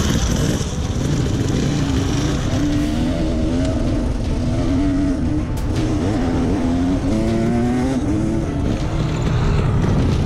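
Enduro dirt bike engine revving hard on a rough hill climb, its pitch rising and falling again and again as the throttle is worked.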